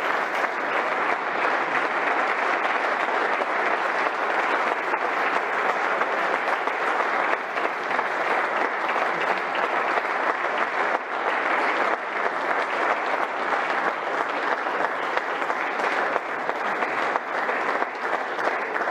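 Sustained applause from a roomful of people clapping steadily, without a break.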